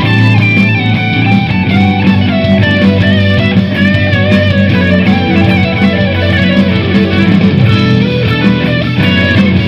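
Electric guitar played through a Lekato Tank G Black guitar multi-effects pedal, a moving melodic line over sustained low notes, with the mids raised and the treble cut.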